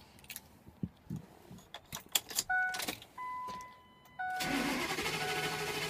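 A few small clicks and the truck's warning chime beeping as the key goes on, then about four seconds in the Ford F350's 6.8 L Triton V10 cranks steadily on the starter without firing, the chime still sounding over it. The engine turns over but will not catch, which the owner puts down to a failed camshaft position sensor.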